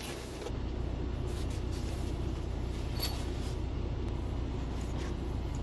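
Semi truck's diesel engine idling with a steady low hum, with a faint click about three seconds in.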